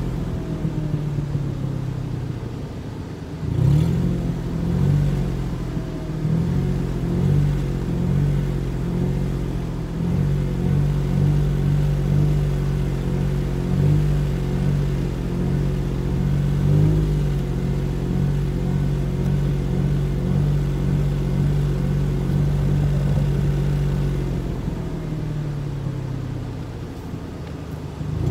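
Ford Mustang engine idling and being revved from the driver's seat: short blips of the throttle about once a second for a stretch, then a longer held rev that eases off near the end before picking up again.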